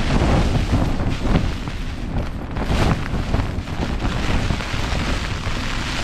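Gale-force wind battering a Hilleberg Soulo tent, heard from inside: a loud rumbling roar that swells and eases with the gusts, with the tent fabric shaking and flapping and wind buffeting the microphone.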